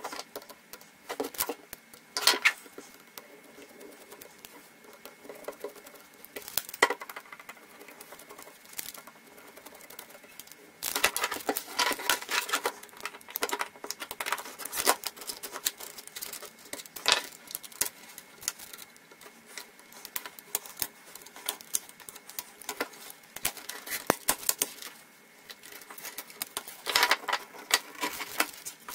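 Irregular clicks, taps and scraping from a flathead screwdriver prying apart the metal frame and plastic parts of a laptop LCD panel, with a denser run of scraping and clicking about eleven seconds in and again near the end.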